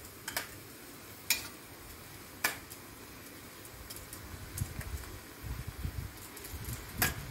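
Metal tongs clicking against a cast-iron pot and a metal tray as beef cheeks are lifted into the pot: a few sharp clicks about a second apart, and another near the end. A low rumble runs under the second half.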